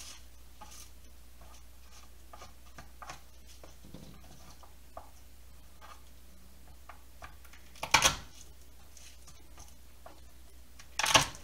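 Dry garlic skins crackling and rustling as cloves are peeled by hand, then two sharp thumps about three seconds apart as the flat of a chef's knife is slammed down on garlic cloves on a plastic cutting board, crushing them to loosen the skins.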